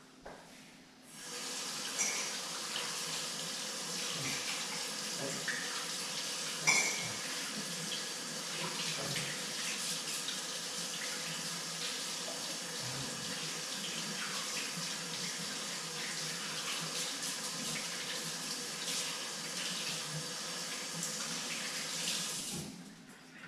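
Kitchen sink tap running while hands are washed under it, heard from across the room. The water comes on about a second in and is turned off near the end, with one brief knock partway through.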